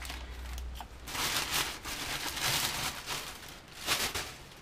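Thin plastic bag rustling and crinkling as it is pulled off a boxed RC motorbike: one long rustle starting about a second in, and a shorter one near the end.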